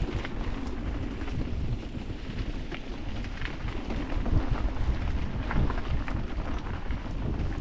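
Wind rumbling on an action camera's microphone while an electric mountain bike rolls over a rough trail, with scattered sharp clicks and knocks from the tyres and bike.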